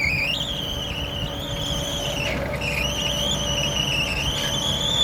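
Grimme Varitron 270 potato harvester running with a steady low drone, over which a high-pitched squeak wavers in pitch and dips briefly about two seconds in.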